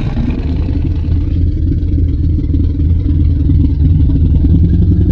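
Fan-made Tyrannosaurus rex sound effect: a deep, steady rumbling growl, loud and heavy in the low end.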